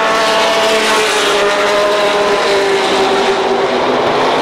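Super late model stock cars racing past at full throttle, several V8 engines running together. Their engine notes drop in pitch as the cars go by.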